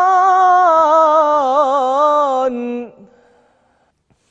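Male Quran reciter singing a long ornamented held note in tajweed recitation, its pitch wavering, then dropping to a short lower note and stopping about three seconds in with a fading echo.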